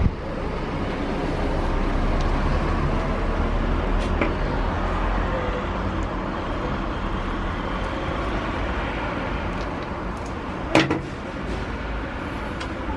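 Steady low background rumble like distant traffic. Over it come a few small handling clicks and one sharp plastic snap about eleven seconds in, as a broken plastic backpack buckle is cut and worked off its webbing strap with side cutters.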